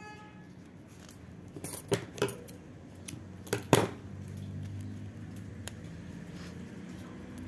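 A few light metallic clicks and clinks of small metal items handled on a tabletop, two pairs about two and three and a half seconds in, the second louder, amid soft handling of ribbon. A faint steady low hum sets in after about four seconds.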